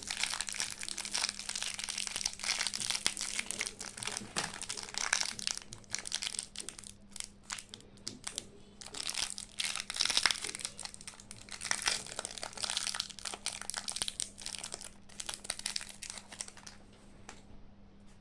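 Packaging crinkled and rustled by hand in uneven bursts of crackling as a surprise box is unwrapped, thinning out near the end.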